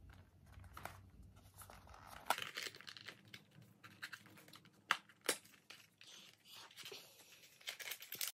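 Small white cardboard box being handled and opened by hand: irregular rustling and tearing of the card and its flaps, with a few sharp snaps about two, five and five and a half seconds in.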